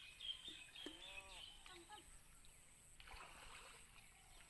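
Faint sloshing and splashing of pond water as people wade and drag a seine net through it, with a brief wash of splashing about three seconds in.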